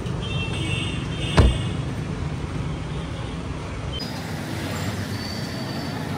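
Street traffic noise, with a car door slamming shut once about a second and a half in.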